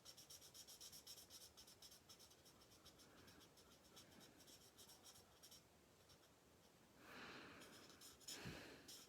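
Faint, rapid scratchy strokes of an alcohol marker (Stampin' Blends) colouring on cardstock, several strokes a second, stopping about five and a half seconds in. A brief rustle and a soft thump follow near the end.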